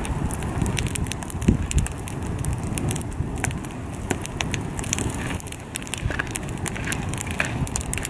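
Wood campfire burning briskly, with frequent sharp crackles and pops from the burning logs over a steady low rumble.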